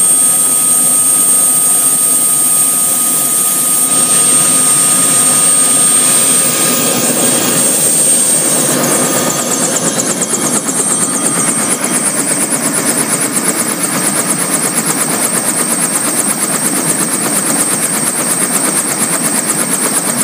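Bell 206 helicopter's turboshaft engine running with a steady high whine, heard first from inside the cabin. About nine seconds in, the sound opens out into the rapid, even beat of the two-blade main rotor over the turbine whine.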